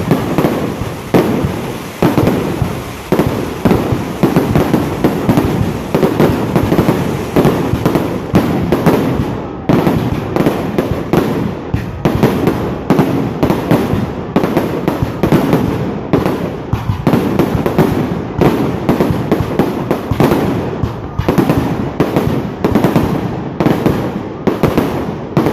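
Fireworks going off in a continuous barrage: rapid loud bangs, several a second, with a rumbling echo between them.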